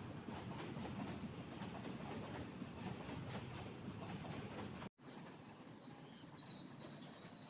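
Freight train wagons rolling with a rhythmic clatter of wheels over the rails. The sound cuts off abruptly about five seconds in and returns quieter, with faint thin high tones.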